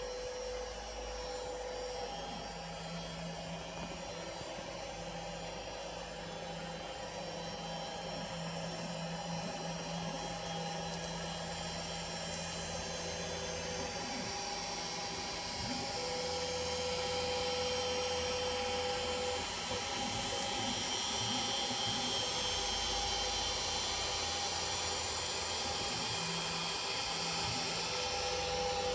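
Home-built CNC router running on hybrid closed-loop NEMA23 stepper motors: a steady whine and hiss, with motor tones that switch on and off every few seconds as the machine moves. It gets a little louder about halfway through.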